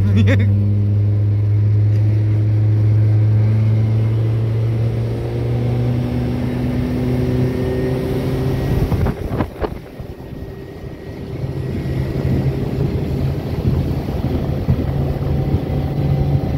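Boat's outboard motor running steadily under way, its hum drifting slowly in pitch. About nine seconds in there are a couple of knocks and the motor eases off briefly, then runs steadily again.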